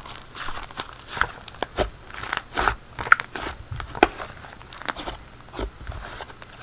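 Butter slime being kneaded and stretched by hand, making irregular sticky clicks and crackles as freshly added activator is worked in.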